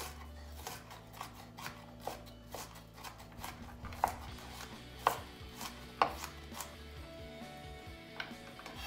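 Knife chopping shallots on a cutting board, in steady strokes about two a second, with a few louder strikes midway.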